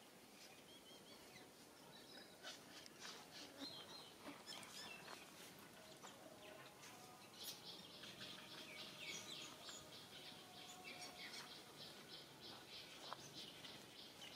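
Birds chirping faintly: many short, high chirps that start about two seconds in and are thickest around the middle.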